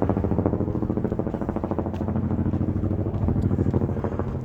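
Helicopter flying overhead: a fast, steady rotor chop over the engine's drone.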